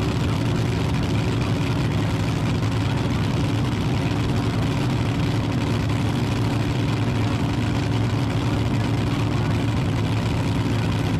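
Drag boat engine idling steadily while the boat sits still on the water, a low even note with no revving.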